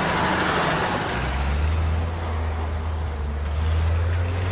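Combine harvester running in a field: a loud mechanical rush that about a second in gives way to a deep, steady engine drone.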